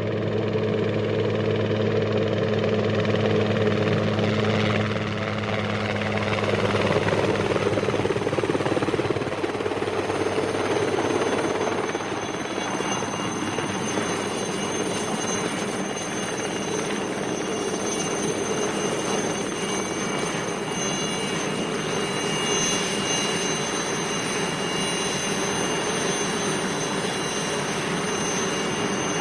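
Helicopter flying by, its rotor and engine running continuously. A low steady hum fades about nine seconds in, and a thin high whine stands out in the later part.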